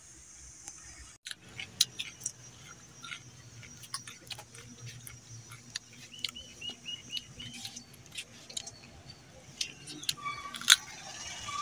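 Raw carrot being bitten and chewed close to the microphone: sharp, irregular crunches. About six seconds in comes a quick run of about seven high chirps.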